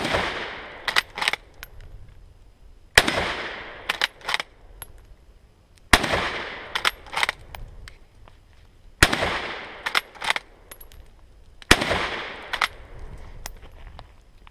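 1941 K98k Mauser bolt-action rifle firing 8mm Mauser: five shots about three seconds apart, each trailing off in a short echo. Between shots the bolt is worked open and shut with a couple of sharp metallic clicks.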